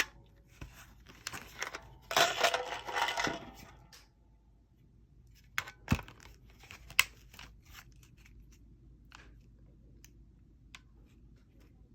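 Handling of pistol magazines: a sharp click, then about a second and a half of scraping and rattling from about two seconds in, followed by a few separate hard plastic-and-metal clicks around six and seven seconds, with fainter ticks after.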